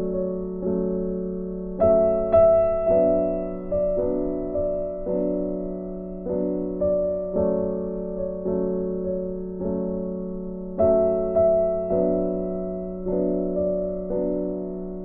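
Background music on a piano-like keyboard: a gentle melody of notes struck one after another, each ringing and fading.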